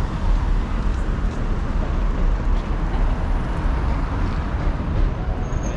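Steady city street noise: a continuous low traffic rumble with a background hiss and a few faint clicks.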